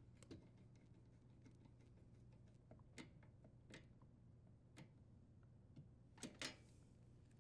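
Near silence with faint scattered clicks of channel-lock pliers and a brass fitting as the water supply line is tightened onto the dishwasher's inlet valve, two slightly louder clicks near the end, over a faint low hum.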